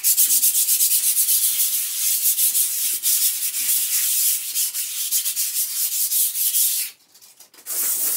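80-grit sandpaper rubbed by hand over a painted wall in quick back-and-forth strokes, keying the old sheen-finish paint so the new coat will grip. The scratching stops briefly about seven seconds in, then starts again.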